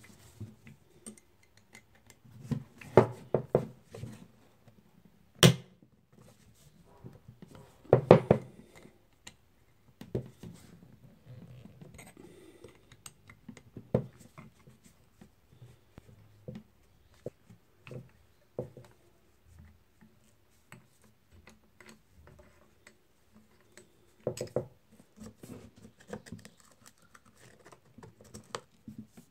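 Rusty Ingersoll Rand air impact wrench being worked apart by hand with a screwdriver: scattered metal clicks, knocks and light scrapes, sometimes in quick clusters, with quiet gaps between them.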